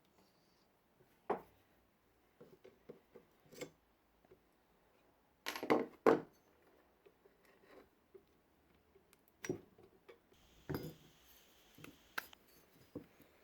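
Irregular clinks and knocks of hard objects, such as tools and metal parts, being picked up and set down on a workbench. The loudest is a pair of knocks about six seconds in.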